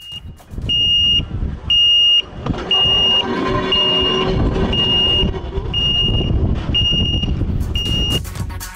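Railway crossing warning beeper on the Volk's Electric Railway, sounding a steady high beep about once a second, eight times, to warn that a train is approaching. Under it, the low rumble of the running electric railway car.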